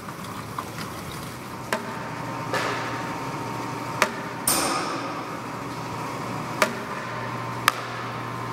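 Water from a leak in the hangar roof dripping into plastic buckets: about half a dozen single drops land at uneven intervals, each a sharp tap, over a steady low hum.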